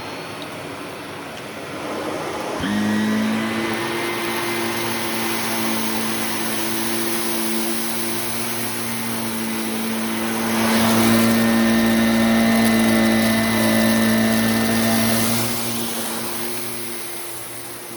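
Shark Navigator upright vacuum cleaner running, picking up cat litter from carpet. A steady motor hum joins the rush of air about two and a half seconds in, and the sound grows louder for several seconds past the middle.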